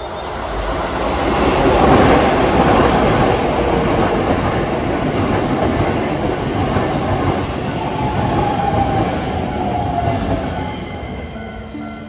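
Keisei electric commuter train passing close by over a level crossing: the rolling wheels build up over about two seconds, stay loud, then fade as the last car goes by. A brief falling whine comes about eight seconds in.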